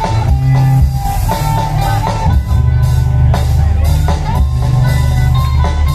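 Loud live band music through an outdoor PA sound system: drum kit strokes over a deep, heavy bass, with a held melody line on top.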